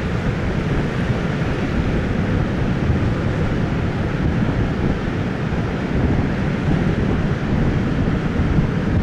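Heavy post-typhoon surf breaking on a rocky coast, a steady deep rumble of waves mixed with strong wind buffeting the microphone.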